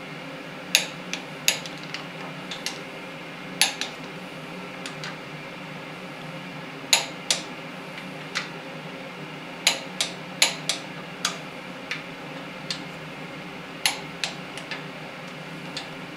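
Sharp metallic clicks from a long-handled torque wrench and socket tightening the water pump housing bolts on a Chrysler 383 big-block to 30 foot-pounds. There are about twenty clicks at irregular intervals, some single and some in quick runs, with a quick cluster about ten seconds in.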